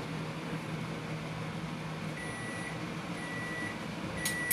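Microwave oven running with a low hum that stops about two seconds in, then three long beeps about a second apart: its end-of-cycle signal that the heating is done. A single sharp click comes near the end.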